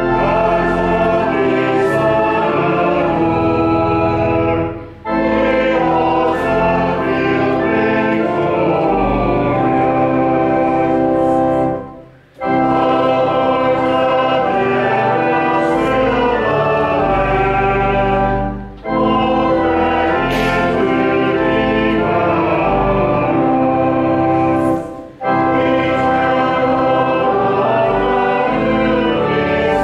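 A choir singing with instrumental accompaniment, in held chords phrased in lines of about six seconds with short breaks between them.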